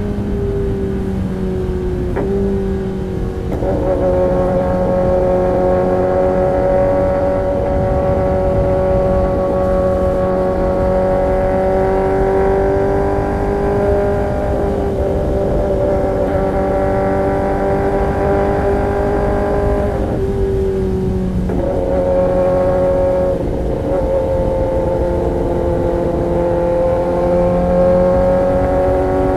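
Kawasaki ZX-10R inline-four running through an Arrow Pro-Race competition exhaust, held at a fairly steady engine speed that drifts up and down. The engine note picks up about three and a half seconds in, eases off just before twenty seconds in, and picks up again.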